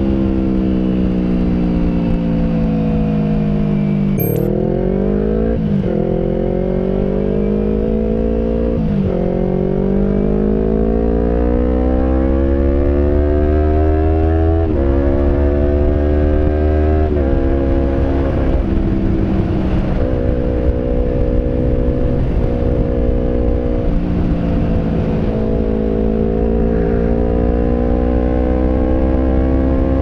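Yamaha R25's parallel-twin engine through an aftermarket 3Tech Racing Evolution exhaust, heard from the rider's seat while riding. The engine note falls at first, then climbs again and again, its pitch dropping sharply at each of several gear changes.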